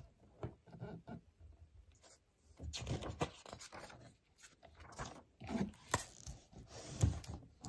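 Book pages turned and flipped by hand, paper rustling a few times over, with a dull thump near the end as the book is closed.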